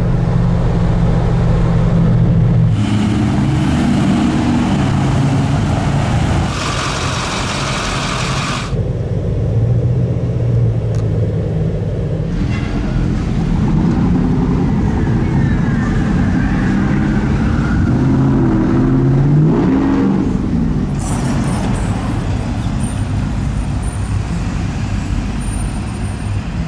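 Pickup trucks and other traffic passing in the street, with a steady engine drone throughout. A loud hiss lasts about two seconds a quarter of the way in, and near two-thirds of the way through one engine revs up with a rising pitch.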